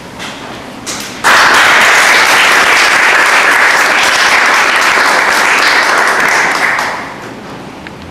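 An audience applauding. A couple of stray claps lead into full applause about a second in, which dies away about a second before the end.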